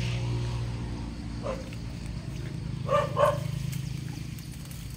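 A hunting dog giving two short barks in quick succession about three seconds in, with a fainter one a second and a half earlier, over a steady low hum.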